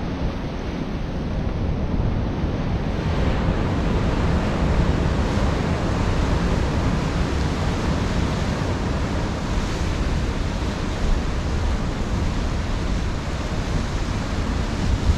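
Rough sea surf with a steady rush of waves, and wind buffeting the microphone.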